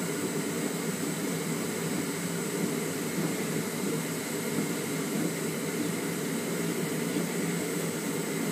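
Rotary packaging machine running, its turret carrying lidded containers round: a steady, even mechanical noise with a faint high-pitched whine.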